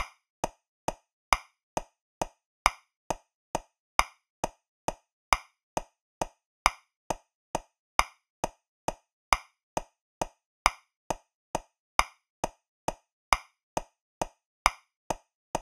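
Metronome clicking at 135 beats per minute in 3/4 time, a little over two clicks a second, with every third click louder as the accented first beat of the bar.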